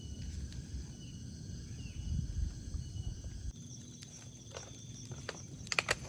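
Insects chirping in a steady high thin tone over a low rumbling background, which changes abruptly about halfway through; a few sharp knocks or clicks near the end.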